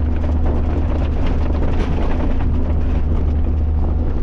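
Inside the cab of a Bucher Duro expedition truck driving over a rough dirt track: the diesel engine runs with a steady low drone, and the cab and its load keep up a constant clatter and rattle from the track's bumps.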